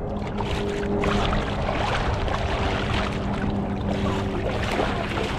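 Shallow water sloshing and splashing around a wading angler fighting a hooked fish on a bent spinning rod. The splashing picks up about a second in, with a steady low hum underneath.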